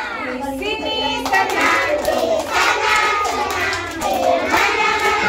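A group of young children singing together while hands clap along.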